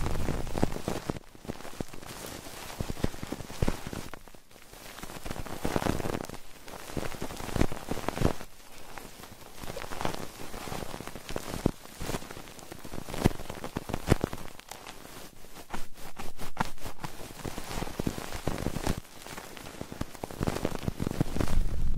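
Close-miked ASMR trigger sounds: dense crackling and scratchy rustling full of small clicks, swelling and fading every couple of seconds, with a quick run of clicks about two-thirds of the way through.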